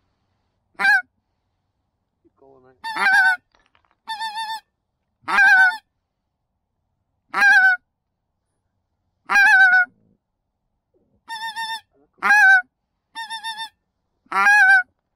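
Goose honking: about ten single loud honks spaced a second or two apart. Some are a flat single note, others break upward into a higher second note.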